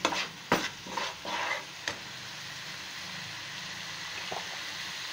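Thick masala gravy sizzling in a frying pan while a metal spoon scrapes and knocks against the pan about five times in the first two seconds, then a steady sizzle. The masala is being fried to the stage where it releases its oil.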